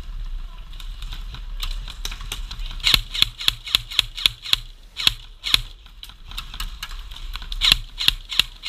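Airsoft gun firing, sharp snapping shots in quick strings, the longest about three seconds in at roughly six shots a second.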